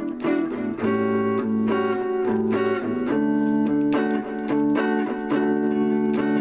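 Electric guitar on a clean tone playing improvised easy-listening chords, picked notes ringing on together and moving to a new chord every second or so.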